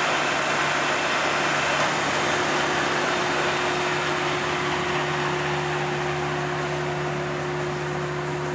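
1973 American 19 x 64 heavy-duty lathe with a 20 HP main motor, its spindle running at the top speed of 1630 RPM: a steady mechanical whir over a low hum. A second steady tone joins about two and a half seconds in, and the sound eases slightly quieter over the second half.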